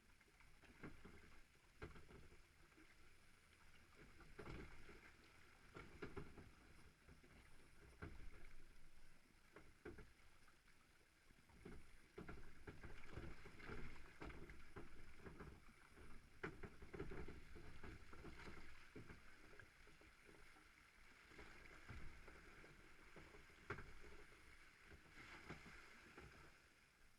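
Log flume boat riding through its water channel: quiet sloshing water and a low rumble, with scattered knocks and bumps.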